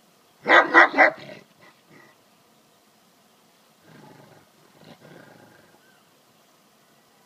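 Large dog giving three quick barks about half a second in, warning off a goat that is pestering it, then fainter growling around four to five seconds in.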